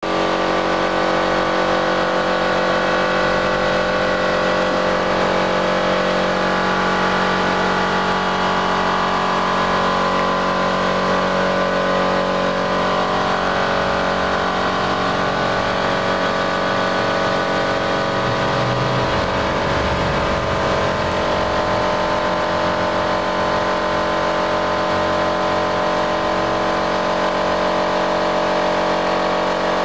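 Steady mechanical drone, like a motor or engine running, holding an even level with many fixed tones.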